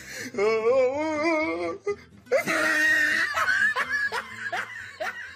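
A person laughing: a long, wavering laugh, then a louder breathy burst of laughter followed by short repeated laughs.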